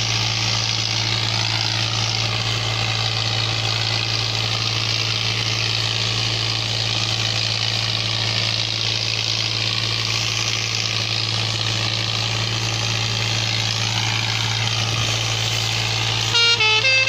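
VST Shakti Viraj 50 hp tractor's diesel engine running steadily as it drives loaded with sugarcane across a field, a constant low drone. Near the end a loud tune of stepped notes starts.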